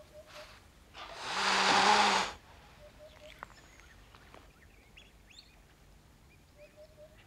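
African wildcat hissing once, about a second in, for about a second and a half.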